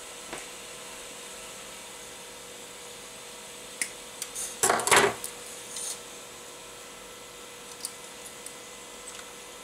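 A coil of 1.75 mm PLA filament being taken down and handled: a short cluster of plastic rustles and clicks about four to six seconds in, over a steady background hum with a faint constant tone.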